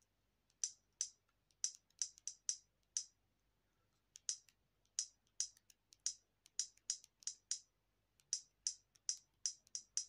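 Keys on the Alcatel OT-880's slide-out keypad pressed in quick runs to dial digits, each press a short, high click. There are three runs of presses with short pauses between.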